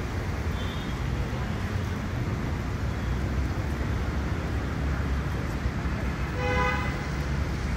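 Steady city street traffic noise, with a vehicle horn honking once briefly near the end.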